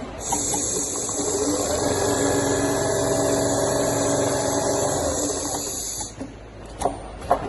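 CNC leather sewing machine running: a steady motor whine with a high hiss, cutting off about six seconds in, followed by two sharp clicks near the end.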